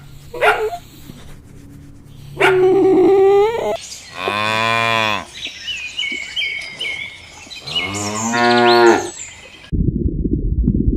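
Cows mooing, several calls, with two long, full moos about 4 and 8 seconds in. Near the end it cuts suddenly to a muffled low rumbling.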